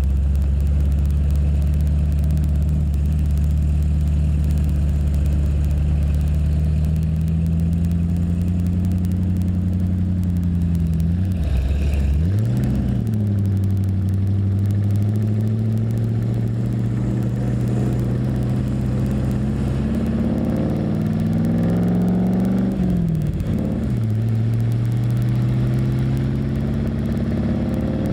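Car engine heard from a camera mounted on the car's flank, pulling along under power. The pitch climbs with the revs and drops sharply twice, about a third of the way in and again about four-fifths of the way in, as the gears are changed.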